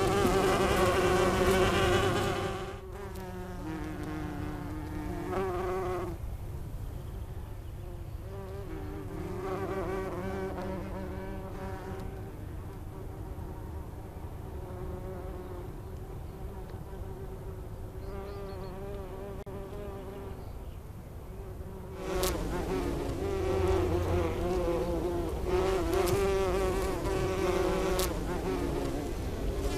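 Bumblebees buzzing in flight, a droning hum that wavers up and down in pitch. It is loudest for the first couple of seconds as a bee takes off, softer through the middle, and loud again for the last quarter.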